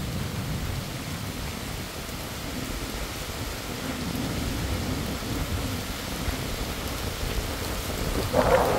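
Heavy rain pouring steadily onto pavement and grass, with thunder rumbling low underneath. A louder noise swells up near the end.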